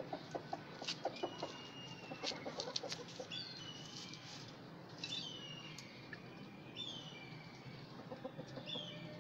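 Chickens feeding: quick sharp pecks of beaks on a clay dish and low clucking in the first three seconds, then several short high calls that fall in pitch.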